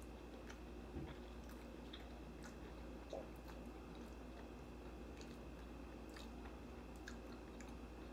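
Faint chewing of a ground-turkey taco, with small wet mouth clicks now and then and a soft knock about a second in.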